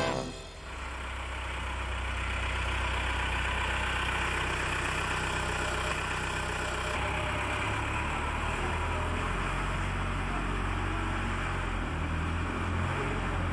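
Large construction-machine engine idling steadily with a low, even drone.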